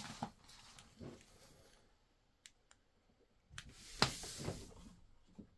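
Scattered sharp clicks and light knocks at irregular intervals, with the loudest click about four seconds in followed by a short hiss.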